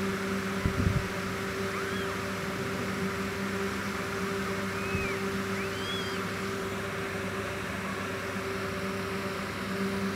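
Newborn kittens giving a few faint, thin mews, short rising-and-falling squeaks about two, four and a half and six seconds in, over a steady hum. A few low bumps about a second in.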